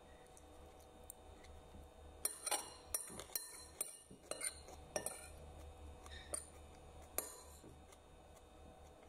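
Metal spoon clinking and scraping against a ceramic plate while scooping up fried rice, with a cluster of clinks between about two and five seconds in and a couple more a little later.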